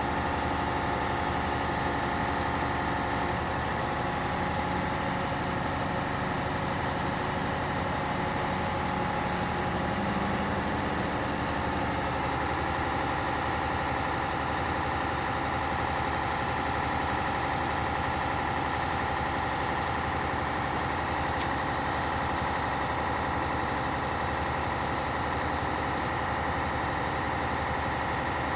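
Scania P113 fire truck's 11-litre six-cylinder diesel running steadily to power the Bronto Skylift boom hydraulics. Steady whining tones ride over the engine and shift in pitch about four seconds in and again about twelve seconds in as the boom moves.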